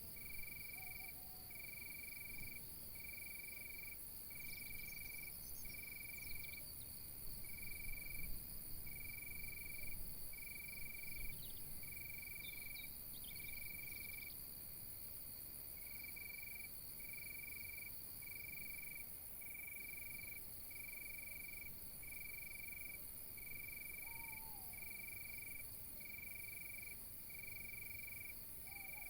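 Night insect chorus: a steady high trill with a cricket-like chirp repeating about once a second. A few brief high bird chirps come in the first half.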